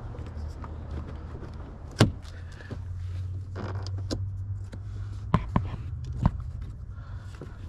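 Plastic door trim and switch panel being pried and handled, giving a few sharp clicks, one about two seconds in and three close together later on, over a steady low hum.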